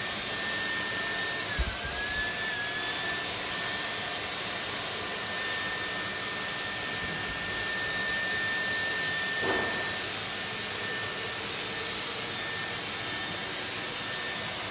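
Portable disinfectant fogger running, its blower motor giving a steady rushing hiss with a high whine over it; the whine dips briefly in pitch about a second and a half in.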